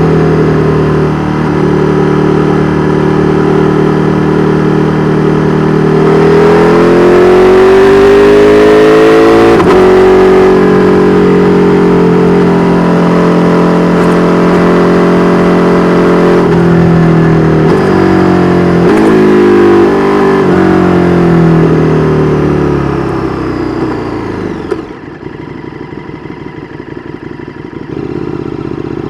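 KTM 1290 Super Duke R's V-twin through an Austin Racing V3 Mini exhaust, accelerating with rising revs and breaks at the gear changes, then holding steady. Later the revs fall away as it slows, and about 25 seconds in it drops to a much quieter low rumble.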